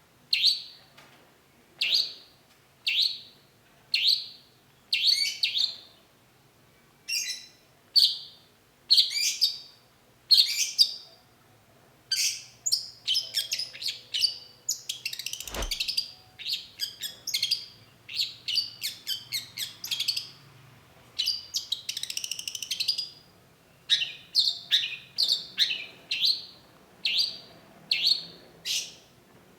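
Long-tailed shrike calling: short calls repeated about once a second, breaking into a faster, more varied run of chattering notes through the middle, then back to single calls about once a second. A single sharp click about halfway through.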